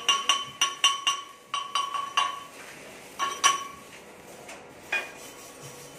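Chipping hammer striking a steel pipe weld to knock off the slag from a stick-welded pass, each hit ringing off the pipe. Quick taps at about four a second for the first two seconds, a few more about three seconds in, and a last single strike near five seconds.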